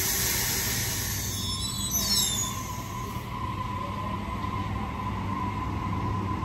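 Waratah Series 2 double-deck electric train pulling out of the station: a steady rumble of wheels on the track, with a steady whine from about a second in. A high hiss fades over the first few seconds, and there are brief high wheel squeals about two seconds in.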